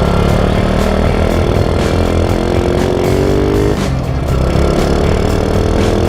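Honda Wave 125 motorcycle engine running, its revs climbing about three seconds in and then falling back.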